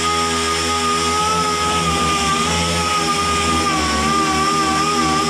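Small right-angle grinder with a yellow abrasive disc running and sanding welded sheet steel: a loud, steady whine that wavers slightly in pitch.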